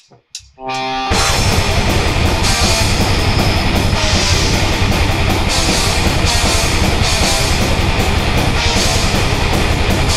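Heavy metal band playing live: electric guitar, bass guitar and drum kit come in together about a second in, after a short held note, then carry on loud and dense with fast, regular drum hits.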